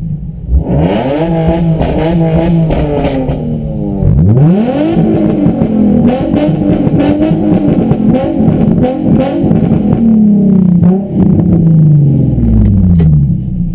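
Car engines revving hard and loud, their pitch sweeping sharply up about half a second in and again a few seconds later. The pitch falls away in the last few seconds.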